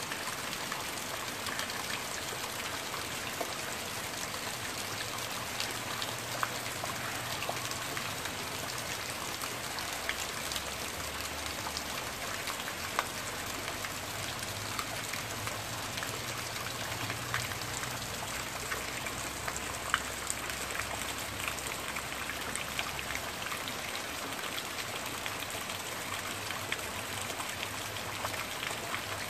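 Steady rain falling on trees and foliage, an even hiss with scattered sharper drop hits close by, a few of them louder.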